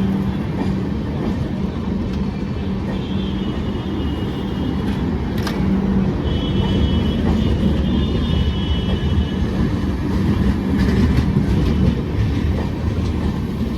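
Express passenger train rolling past on the rails as it pulls out of the station, a steady loud rumble of wheels with a constant low hum.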